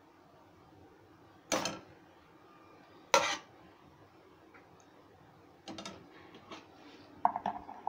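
Metal ladle knocking and scraping against a steel frying pan while stirring thick gravy: two loud clangs about a second and a half apart, then a few lighter taps near the end.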